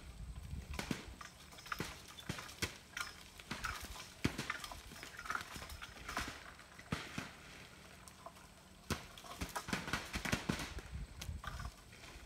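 Wild apples dropping onto plastic tarps in scattered, irregular thuds and knocks, some in quick clusters, as a long picking pole shakes the branches above.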